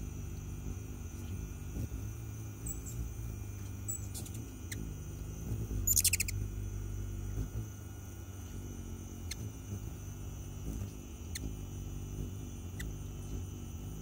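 Hummingbird hovering at a hand-held nectar feeder: the low, wavering hum of its wingbeats, a few faint high chips, and about six seconds in a short, rapid clicking chatter, the loudest sound.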